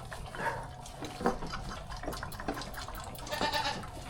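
Hungry baby goats bleating: a short call about half a second in and a longer one near the end, amid light clicking and knocking.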